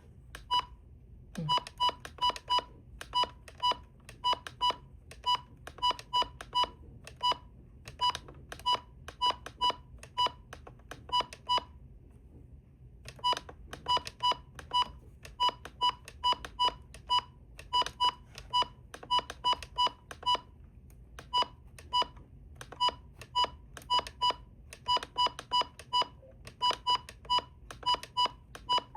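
Weather radio button beeps: short, identical electronic beeps, about two to three a second, as the keys are pressed over and over to step through the setup menus, with a brief pause about twelve seconds in.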